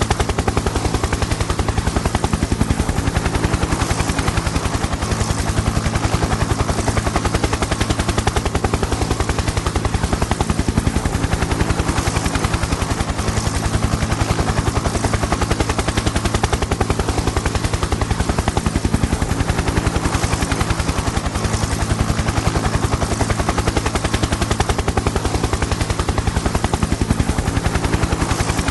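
Helicopter in flight: the rotor blades chop in a rapid, even beat over a steady low engine hum, holding constant throughout.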